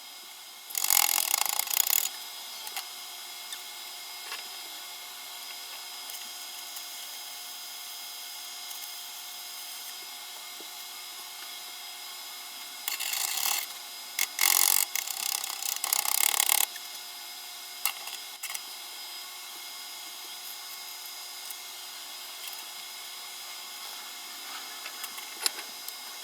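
Four short bursts of harsh, raspy noise, about a second each: one near the start and three close together around the middle, from metalworking on the steel carriage parts.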